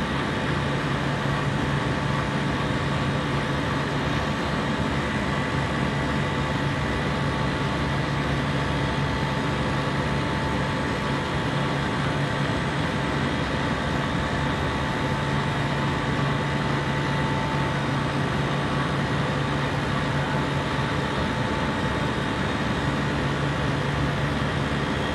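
A compressor running steadily: a constant machine hum with several unchanging tones held above it.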